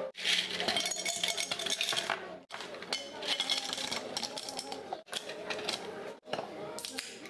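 Ice cubes clattering and clinking as they are dropped into tall glass pitchers, in several short takes that cut off abruptly.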